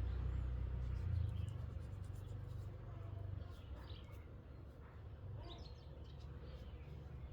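Faint bird chirps over a low rumble that fades after about three and a half seconds, with light scattered scratchy clicks.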